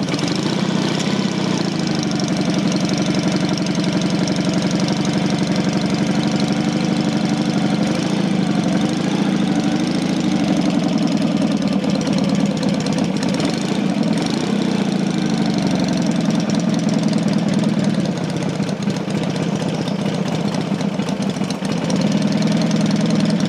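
Matchless G12 650 cc parallel-twin engine running at a steady fast idle just after a cold start, warming up on full choke; the engine has just been rebuilt with a new crankshaft, conrod, main bearing and rings. Its speed wavers slightly a couple of times as the rider keeps it going on the throttle.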